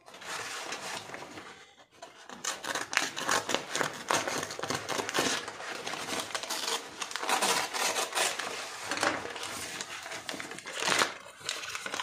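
Paper courier envelope crinkling and rustling as hands tear it open and pull the paper apart. The crackle runs on with many small bursts, dips briefly about two seconds in, and has a louder burst near the end.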